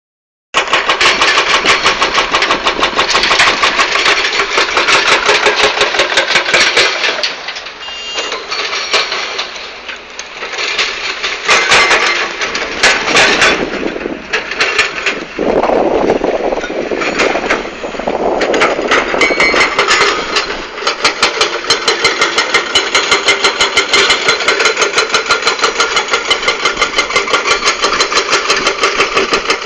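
Excavator-mounted hydraulic rock breaker hammering hard rock in a rapid, even series of blows, with the excavator's diesel engine running under it. The hammering breaks off for a stretch in the middle, where the engine note rises and falls, then starts again about two-thirds through.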